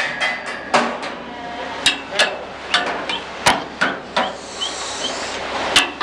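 Irregular sharp knocks and clacks, one or two a second, over a steady background din.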